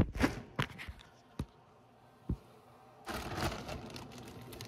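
Faint handling noises: a few small clicks and knocks, a near-silent stretch, then soft rustling from about three seconds in.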